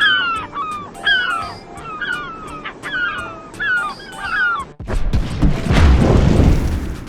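A bird calling repeatedly, about eight short cries that each dip and hook back up in pitch, followed from a little before five seconds in by a loud rushing noise.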